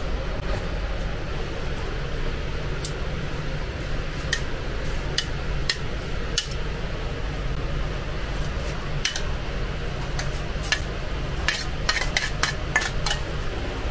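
Steel tongs clicking and scraping against a metal plate as sliced döner meat is pushed onto flatbread: scattered sharp clinks at first, then a quick run of them near the end. A steady low hum runs underneath.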